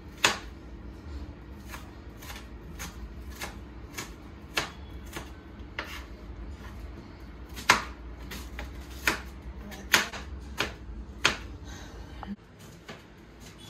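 Kitchen knife chopping red onions on a cutting board: sharp, irregular knocks of the blade striking the board, roughly one or two a second, the loudest strikes in the second half.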